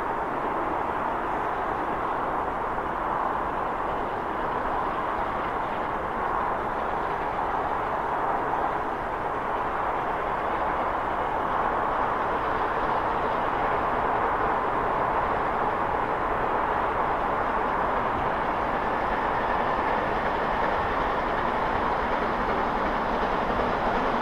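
GWR Castle class four-cylinder 4-6-0 steam locomotive 7029 Clun Castle working a passenger train under steam, heavy exhaust at the chimney. It is a steady, continuous sound that grows louder from about halfway through as the train approaches.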